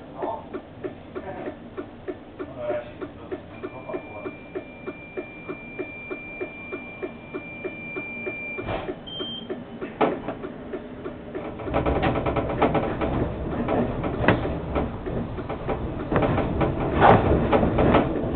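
Tram cab sounds: a rhythmic ticking, about three a second, with a steady high beep held for several seconds, a short higher beep and two clunks. About two thirds through, the tram starts to move and its running noise on the rails rises.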